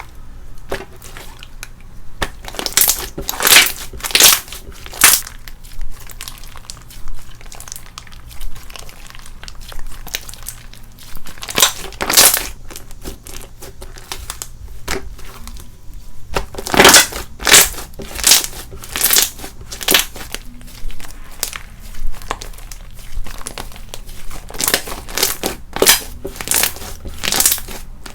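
Slime being squeezed, stretched and pressed by hand, giving a run of crunchy crackles and popping air bubbles in bursts, about one or two a second.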